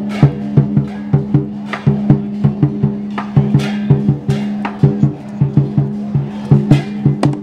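Lion dance percussion: a large Chinese barrel drum beaten in a quick, steady rhythm of about three strokes a second, with crashing cymbals.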